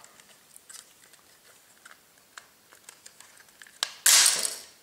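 Scattered small plastic clicks and ticks as the plastic housing of a Honeywell HR92 radiator valve controller is twisted and pried apart by hand. About four seconds in comes a loud snap, fading over well under a second, as the part is forced free.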